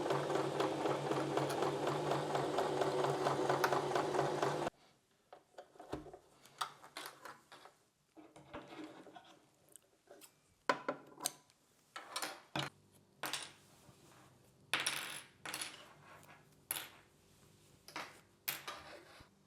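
Electric sewing machine stitching steadily, stopping abruptly about four and a half seconds in. After it, a string of small irregular clicks, taps and clinks of handling at the machine.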